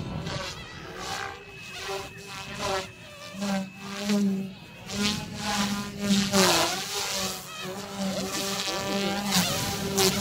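Small electric RC helicopter (Goosky S2) buzzing and whining in flight, its pitch rising and falling as the rotor is loaded and unloaded through manoeuvres.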